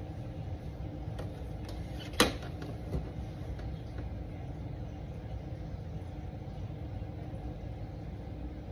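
Steady low rumble of background room noise with a faint hum, and a handful of light clicks and taps in the first few seconds, one sharper click about two seconds in.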